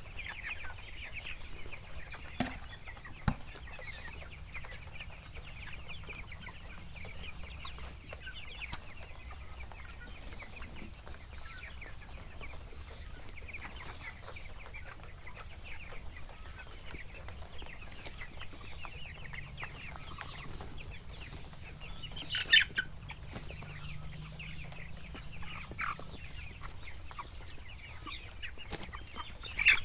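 A shed full of 22-day-old broiler chickens clucking and peeping in a steady, dense chatter. Two sharp knocks stand out, about three-quarters of the way through and again near the end.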